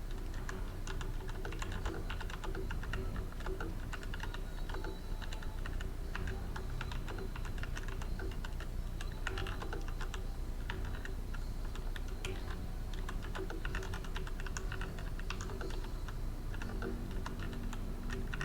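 Tecware Phantom mechanical keyboard being typed on steadily, a rapid unbroken run of key clicks at a pace of about 49 words per minute.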